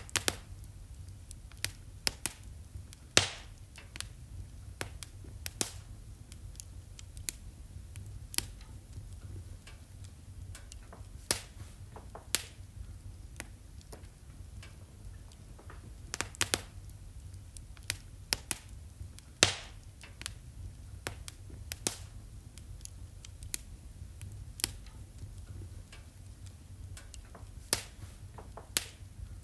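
Wood fire crackling in a fireplace: irregular sharp pops and snaps, two louder ones about 3 and 19 seconds in, over a low steady rumble of the flames.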